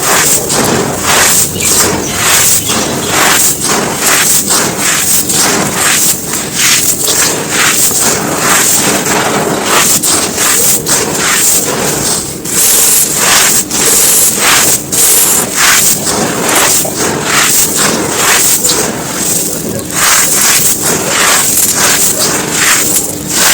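Brittle dry lumps being crumbled and crushed: a dense, unbroken run of crackling crunches.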